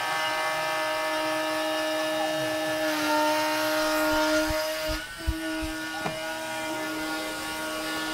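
Spindle of a Stepcraft M.1000 CNC router cutting walnut, a steady high whine. Its pitch sags slightly for a couple of seconds in the middle, with a brief break and a few low knocks around five seconds in.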